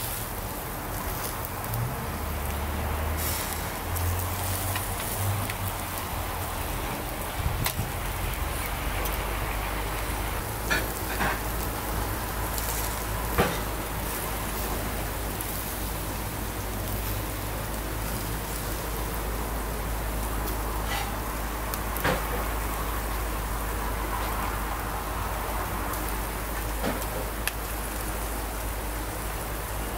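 Pork barbecue skewers sizzling on a grill grate, a steady hiss with a few sharp pops of spitting fat, over a steady low rumble.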